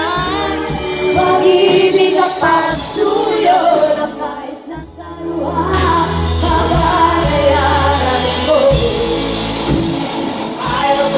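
Live band music with several women singing together over electric guitar and bass. The music drops back briefly about halfway through, then comes in again with a heavy bass.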